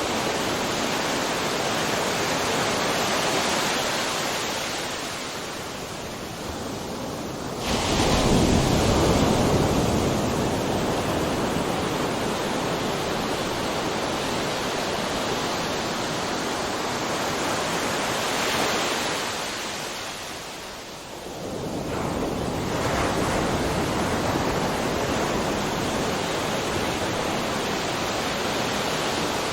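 Ocean surf: waves breaking on the shore with a continuous rushing wash. A loud crash surges in about eight seconds in, and another wave breaks after a brief lull about two-thirds of the way through.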